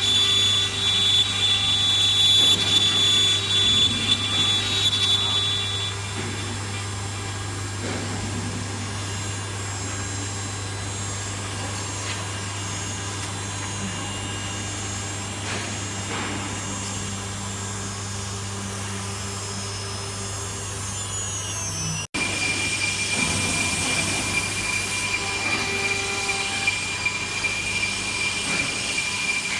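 Five-axis CNC router's spindle whining as it carves a wooden board, over a steady low machine hum. The louder cutting noise and high whine drop away about six seconds in, and after a brief break near the end a lower-pitched whine takes over.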